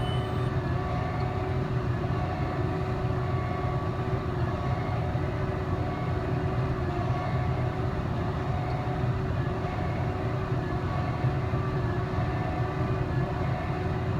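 Tractor pulling a New Holland big square baler, engine and baler running steadily at work in the hay.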